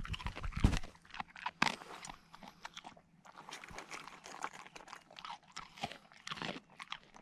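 Dog eating dry kibble from a metal bowl that has a tennis ball in it as a slow feeder: an irregular run of crunches, loudest in the first two seconds. A low rumble is heard in the first second.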